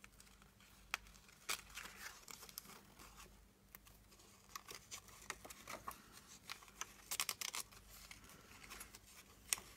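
Paper being handled: intermittent rustling and crinkling with scattered small taps and clicks, as journal pages and craft materials are moved and pressed.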